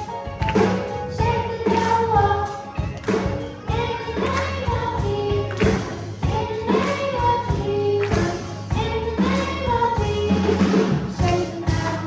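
Children's gospel choir singing with band accompaniment: bass and a steady drum beat under the voices.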